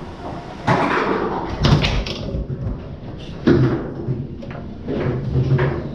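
Foosball rally on a Tornado table: a string of irregular sharp knocks and slams as the ball is struck by the rod men and hits the table walls, with the rods clacking.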